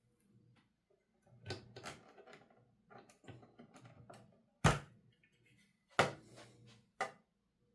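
Olivetti Linea 88 manual typewriter mechanism being worked: a handful of separate sharp clacks and clunks at uneven spacing, with lighter rattling between them.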